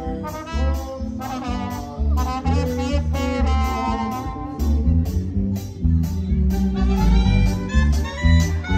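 Live band music with a brass section, trumpets among them, playing melodic lines over a heavy bass and a quick, steady percussion beat; the horns hold steady notes near the end.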